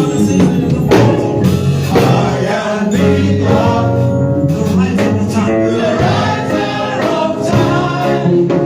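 Gospel song: voices singing together over instrumental accompaniment with a steady beat.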